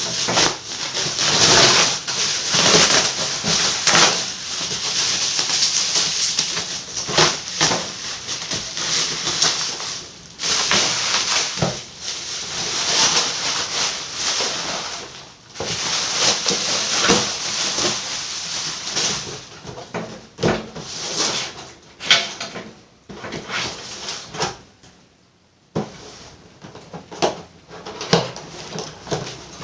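Helmet packaging being handled and opened by hand: irregular rustling and scraping of cardboard and plastic wrapping, broken by sharp clicks and knocks, with a short lull near the end.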